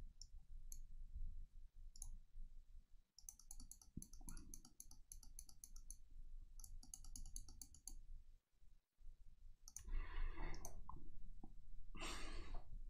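Online poker software's sound effects: quick runs of light clicks as cards are dealt and chips go in for a new hand, quiet over a low background hum.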